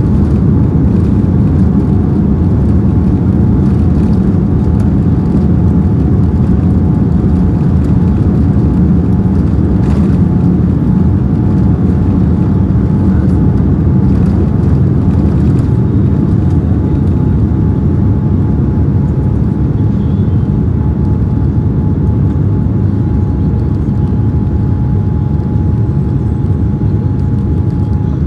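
Cabin noise of a Boeing 787-9 on its takeoff roll and liftoff. The Rolls-Royce Trent 1000 engines at takeoff thrust and the wheels on the runway make a loud, steady deep rumble with a thin steady whine above it. The rumble eases a little in the second half as the aircraft climbs away.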